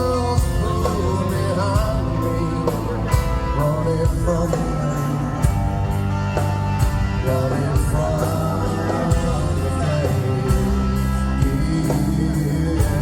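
Live rock band playing a song: drums keep a steady beat under a full bass and a wavering lead melody.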